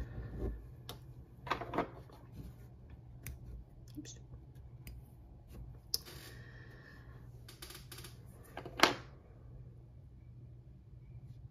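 Cross-stitch handling sounds: embroidery thread pulled through 25-count Lugana evenweave fabric in several short swishes, the loudest about nine seconds in, with small clicks in between.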